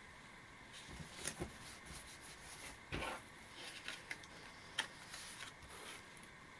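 Sheets of cardstock being laid and pressed onto a sticky plastic cutting mat, and the mat slid across the table: faint paper rustles and light taps, a dull bump about three seconds in and a sharp click near five seconds.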